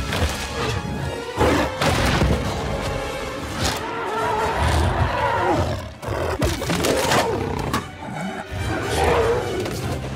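Film soundtrack mix: dramatic score music under the roars of giant creatures fighting, a gorilla and tyrannosaur-like dinosaurs, broken by several heavy crashing impacts.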